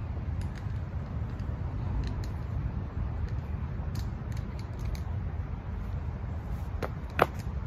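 Steady low background rumble with a few faint ticks, then near the end a light hit followed at once by a sharp smack: foam-padded boffer swords striking in sparring.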